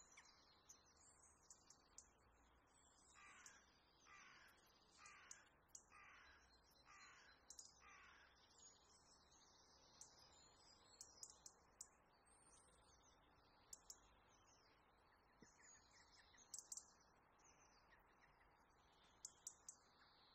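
Faint birdsong: high chirps throughout, with one bird giving six calls about a second apart from about three to eight seconds in. Scattered faint clicks of a knife on a plastic cutting board.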